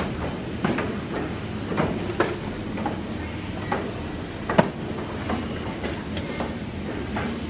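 Steady low rumbling background noise, broken by irregular short clicks and knocks as a bag is handled close to the microphone; the sharpest knock comes about four and a half seconds in.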